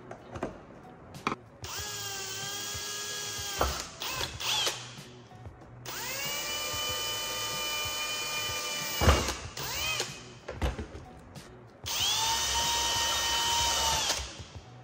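Cordless drill driving fasteners, running in three steady whines of a few seconds each, each tailing off as the motor spins down. Short clicks and knocks of parts being handled fall between the runs.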